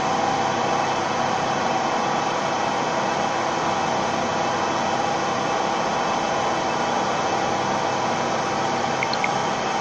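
Gantry CNC drilling machine running while drilling a metal tube sheet: a steady mechanical hum and hiss with a few steady tones, without a beat. A couple of faint short high chirps near the end.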